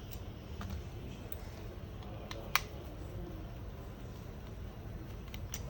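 A few small, sharp clicks, the loudest about two and a half seconds in, over a steady low hum: a small screwdriver and tiny screws being handled as the screws are taken out of a smartphone's inner frame.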